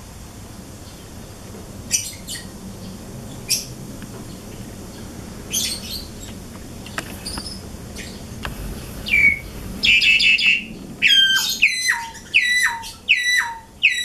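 Black-collared starling calling: a few scattered short chirps, then a louder burst of calls, and in the last few seconds a run of harsh calls that each slide down in pitch, about two a second.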